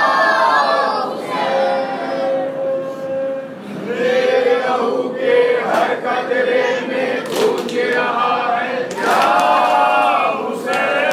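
A crowd of male voices chanting a mournful noha together in long held lines, with a few sharp slaps of hands striking bare chests in matam.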